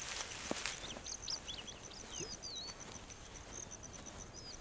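Bush ambience: an insect's steady, high, pulsing trill, with a bird's short swooping whistle a couple of times and scattered quick chirps.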